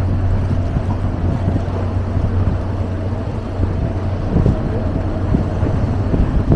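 Tour boat's engine running with a steady low drone, mixed with wind noise on the microphone.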